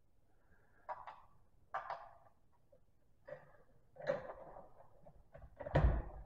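Handling noise from a bolt-action rifle on a shooting bench: a few separate clicks and knocks about a second apart, the loudest a dull knock near the end.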